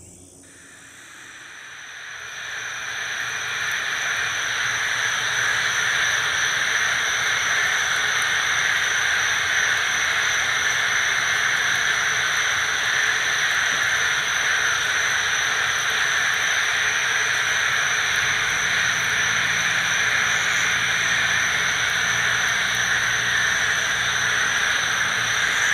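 A dense chorus of many frogs calling at night, merged into one continuous loud wall of sound. It swells up over the first few seconds and then holds steady, with a steady high-pitched tone above it.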